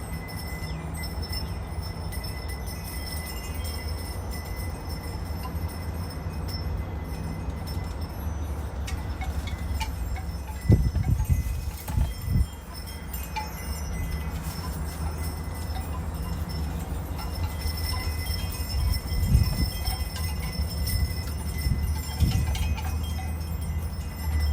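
Wind chimes ringing faintly in a breeze over a steady low wind rumble, with a few louder low buffets of wind on the microphone about halfway through and again near the end.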